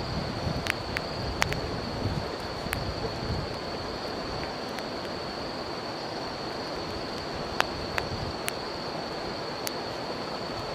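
Wood campfire crackling, with sharp pops now and then, over the steady rush of a river and a continuous high-pitched insect trill.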